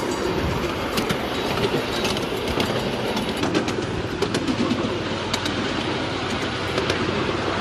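Miniature passenger train running along the track, its wheels clicking irregularly over the rail joints above a steady rolling rumble.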